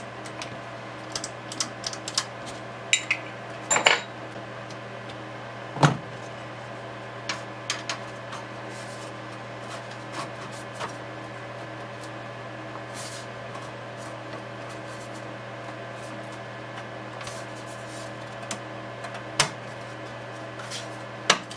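Scattered light metallic clicks and clinks of a screwdriver, small screws and the sheet-metal front panel being handled while a Kurzweil K2000R rack synthesizer is put back together, thickest in the first few seconds with a sharper knock about six seconds in. A steady low hum runs underneath.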